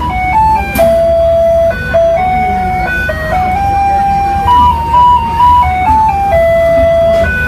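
An electronic chime plays a simple tune one plain note at a time, over a steady low rumble.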